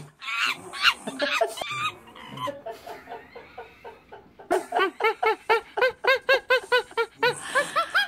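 Animal calls added as a sound effect: irregular cries at first, then after a short lull a quick even run of rising-and-falling calls, about three to four a second.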